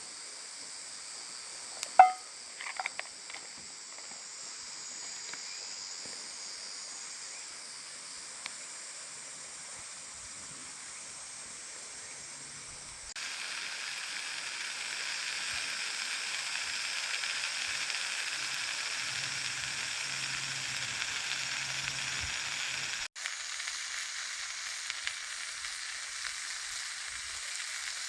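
Frozen vegetable-and-chicken ajillo sizzling in oil over a wood-burning stove, a steady frying hiss. There is a single metal clink about two seconds in, and the sizzle turns louder about halfway through.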